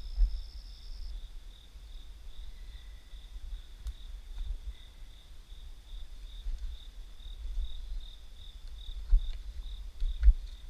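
Crickets chirping at night: a steady, evenly pulsed chirp about two or three times a second, with a second higher trill that stops about a second in. A few low thumps sound near the start and twice near the end.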